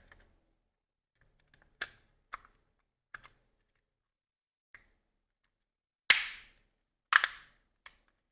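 A series of separate sharp knocks. The two loudest come about six and seven seconds in and each rings out briefly.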